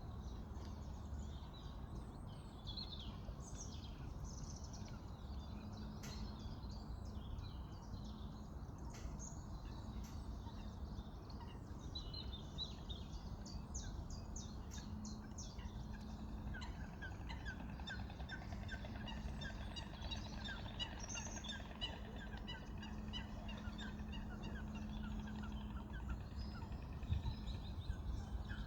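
Waterfowl and other birds calling in a swamp, scattered calls over a steady low background noise, with a long run of quick repeated notes through the second half.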